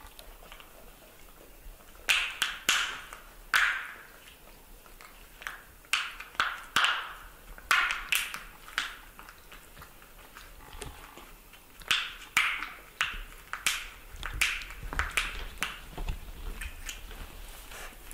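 Wet smacking, sucking and chewing mouth sounds from a puppy and a baby macaque, in bursts of quick clicks with pauses between.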